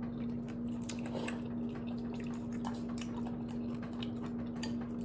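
Ramen noodles being eaten with chopsticks from ceramic bowls: quiet chewing and many small clicks and wet noodle sounds, over a steady low hum.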